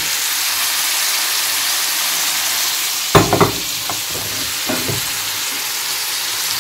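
Clam meat, onion and carrot sizzling steadily in oil in a frying pan, with a loud metal clatter about three seconds in and a smaller knock near five seconds as the pan is shifted off its gas-burner grate.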